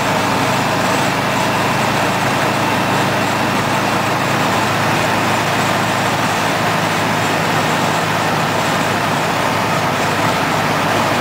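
Steady engine and road noise inside an Alfa Romeo GTV's cabin cruising at highway speed, a low engine hum under the tyre noise.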